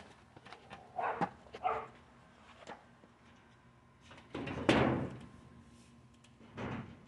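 Thin sheet-metal panels of a steel storage shed knocking and rattling as they are handled and fastened, a few separate clatters with the loudest about two-thirds of the way through.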